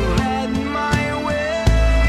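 Music: a rock song with deep bass, drum hits and a gliding melody line. The bass swells up sharply near the end.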